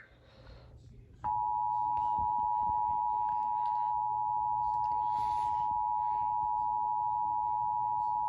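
Emergency Alert System attention signal: a steady two-tone alert tone that starts about a second in and holds without change, heralding the warning message.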